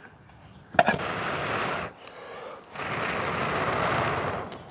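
A person blowing hard on glowing wood coals piled on a camp baking pan's lid, stoking the top heat. Two long blows, the first about a second long and the second nearly two seconds, with a short pause between.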